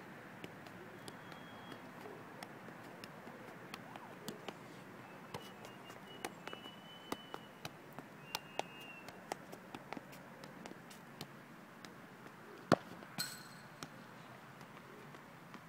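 A football being juggled and tapped by foot on an outdoor hard court: a string of light, irregular taps, then one sharp, harder kick near the end followed by a short ringing clang.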